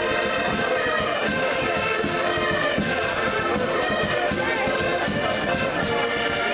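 A group of button accordions playing a tune together, with a steady, even beat.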